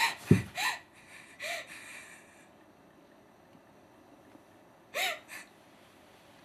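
A woman's frightened, tearful gasps and sobs: a cluster in the first two seconds with a low thump just after the start, then two more sobbing gasps about five seconds in.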